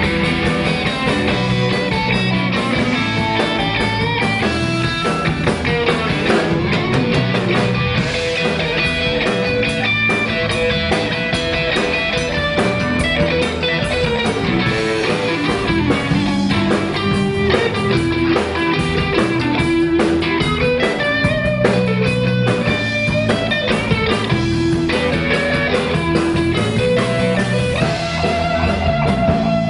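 Live blues band playing, with guitar lines moving over a steady beat.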